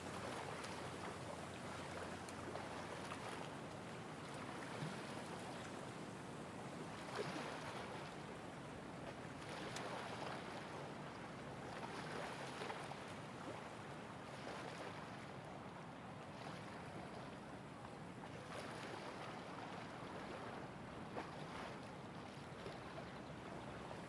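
Small waves lapping gently at a lakeshore among driftwood logs, a soft steady wash that swells every few seconds, with a light breeze and a few faint ticks.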